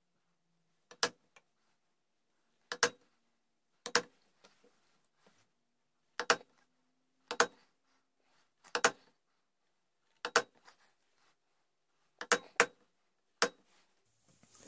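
A mallet tapping a chisel into a wooden gunstock, setting in the outline of a flintlock long rifle's sideplate inlet. There are about ten sharp taps, one to two and a half seconds apart, with two in quick succession near the end.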